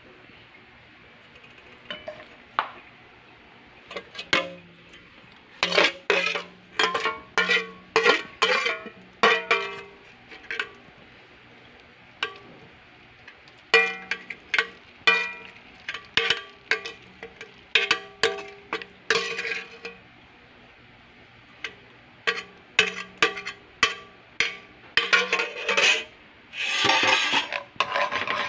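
Metal spoon knocking and scraping against a stainless steel bowl and wok rim as the marinade is spooned out, many short ringing clinks in quick runs. Near the end a continuous rasping scrape as the sauce is stirred in the wok.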